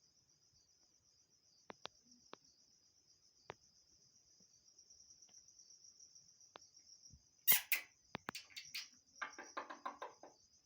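Crickets chirping in a steady, high, pulsing trill, with scattered sharp clicks. About three quarters of the way through comes a sudden flurry of loud, sharp sounds, then about a second of rapid, repeated chirping.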